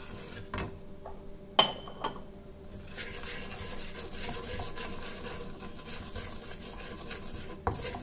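Wooden spatula stirring and scraping melting butter and spices around a kadai, with a few knocks against the pan early on, the loudest a short ringing clink about a second and a half in, then steady scraping.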